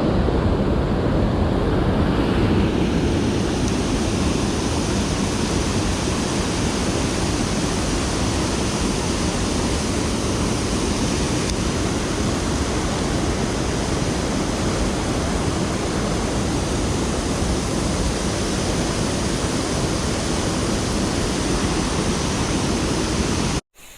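Steady rushing of creek water, an even hiss with no let-up.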